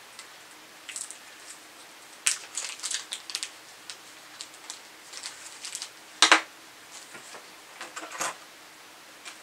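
Clear plastic packaging crinkling, with light clicks of small parts, as a dummy load and its connectors are unwrapped and handled; one louder crinkle about six seconds in.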